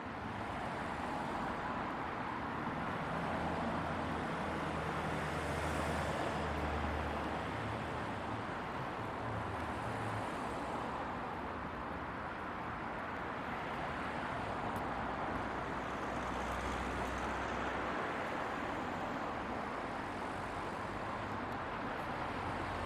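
Steady outdoor street ambience: an even background hiss and din, with low, uneven rumbles now and then.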